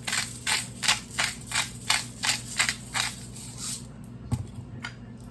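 Salt shaker shaken over a bowl of macaroni salad: about ten quick rattling shakes, around three a second, which stop after about four seconds and are followed by a soft bump.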